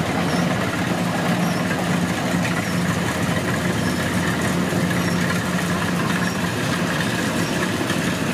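Diesel engine of a Kubota DC105X combine harvester running steadily at idle.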